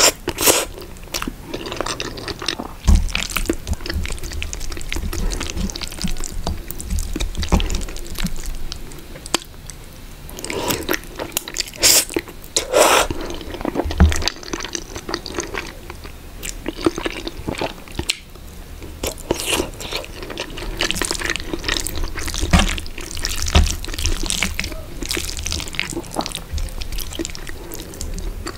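Close-miked mouth sounds of eating creamy spaghetti carbonara and sausages: wet slurps of noodles, chewing and lip smacks, coming irregularly throughout.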